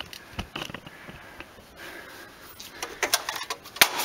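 Metal tools being handled: clicks and clinks of sockets and a socket wrench, a few about half a second in, a cluster about three seconds in and a sharp click near the end.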